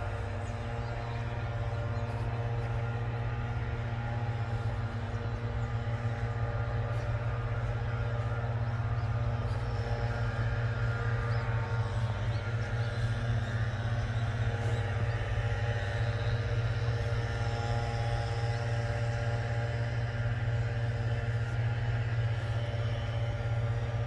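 Steady low mechanical hum with several steady tones over it, growing a little louder over the first several seconds.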